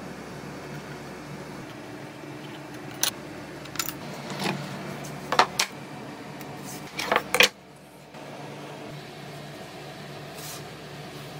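Steady background hum with a handful of short clicks and rattles in the middle as parts are handled on a wooden tabletop, the loudest cluster a little after seven seconds.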